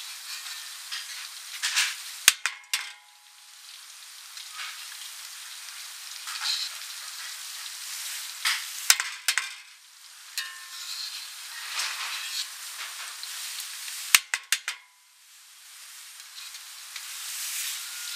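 Battered duck pieces deep-frying in a wok of hot oil, a steady sizzle. A metal skimmer clinks against the wok in short clusters of clicks about two seconds in, around nine seconds and around fourteen seconds.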